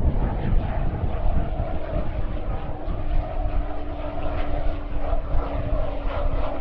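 Pilatus PC-12 single-engine turboprop landing, its engine and propeller running at low power with a steady hum, over a low wind rumble on the microphone.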